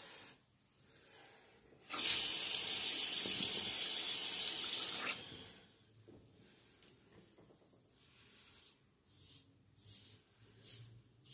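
Bathroom tap running into a sink for about three seconds, starting about two seconds in and cutting off sharply. Near the end come a few faint, short scrapes of the Merkur 37C slant safety razor cutting stubble.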